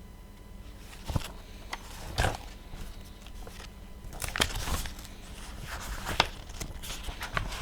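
Scattered light knocks, clicks and rustling of objects being handled, a handful of separate strokes spread through the stretch with the loudest about two seconds in.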